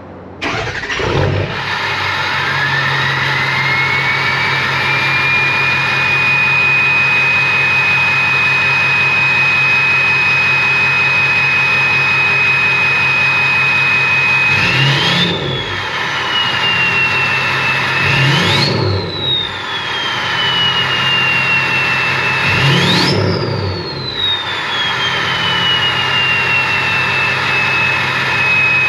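Diesel truck engine starting cold, then idling with a high turbocharger whistle that climbs in pitch as the turbo spools up and settles into a steady tone. The throttle is blipped three times in the second half; each blip sends the whistle sharply higher, and it glides back down to the idle tone.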